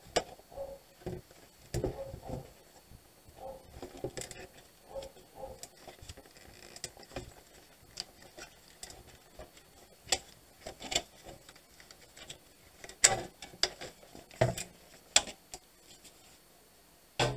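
Irregular clicks, knocks and light rattles of gloved hands handling a solar inverter's opened metal case, cover and internal cables, with the sharpest knocks about ten, thirteen and fifteen seconds in.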